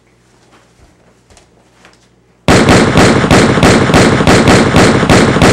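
Rapid gunfire, a loud unbroken string of shots that starts suddenly about two and a half seconds in after a quiet stretch.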